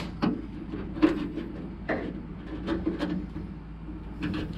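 Irregular light clicks and taps, about half a dozen, as a door lock cylinder and its retaining clip are worked into place by hand inside a truck door, over a low steady hum.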